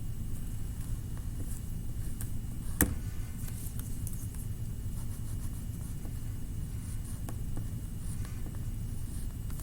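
Faint scratchy strokes of colouring on paper over a steady low rumble, with a single sharp click about three seconds in.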